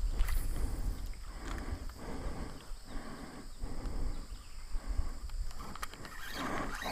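Ultralight spinning reel being cranked to retrieve a small crankbait: a rhythmic whir-and-rustle that repeats about once or twice a second, over a low rumble of wind on the microphone.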